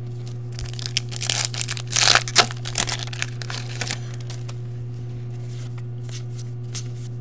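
Foil trading-card pack wrapper being torn open and crinkled by hand, a burst of tearing and crackling starting about a second in and lasting a few seconds, then dying down to a few faint rustles.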